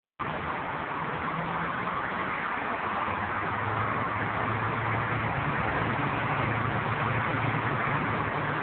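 Dense multi-lane freeway traffic: a steady rush of tyre and engine noise from many cars passing, with a low engine hum underneath.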